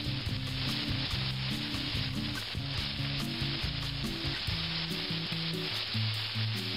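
Chicken breasts searing in oil in a stainless steel skillet, sizzling steadily, with background music playing underneath.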